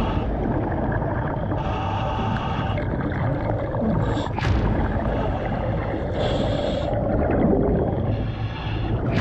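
Muffled underwater sound of a scuba diver descending, with a steady low rumble. The regulator hisses in three short bursts of about a second each, and there is a sharp whoosh about four and a half seconds in.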